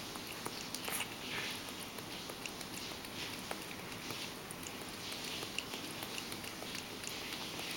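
Ragdoll cat lapping milk from a stainless steel bowl: a rapid, steady run of small clicks from its tongue.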